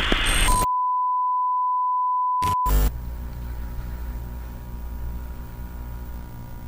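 A steady electronic beep, one pure tone held about two seconds, cut in right after a short burst of noise. Two sharp clicks follow, then a low steady hum with faint hiss.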